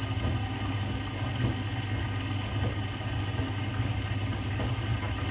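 Front-loading washing machine running its wash cycle: a steady motor hum from the turning drum, with water and laundry sloshing inside.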